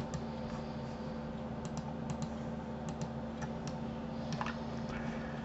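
Scattered single clicks of a computer keyboard and mouse, about a dozen spread irregularly, over a steady low hum.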